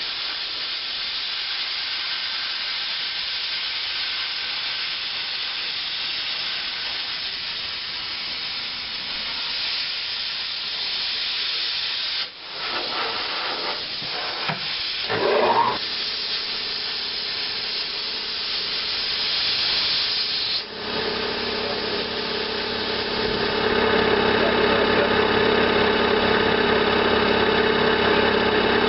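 Plasma cutter cutting steel plate, a steady hiss of air and arc that breaks off briefly about twelve seconds in and again around twenty seconds in. After the second break a steady machine hum with several level tones starts and the sound grows louder.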